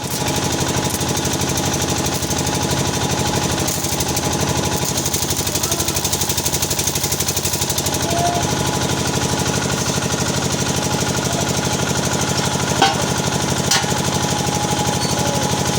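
Arc welding: a loud, steady buzzing crackle that runs without a break, with two sharp clicks a second apart near the end.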